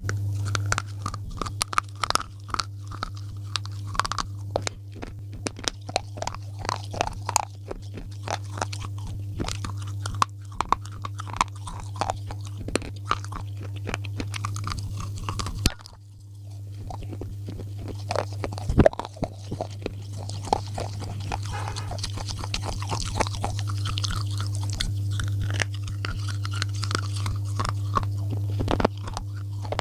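Slate pencils being bitten and chewed close to the microphone: a dense run of sharp, irregular crunches over a steady low hum, with a short lull about halfway through.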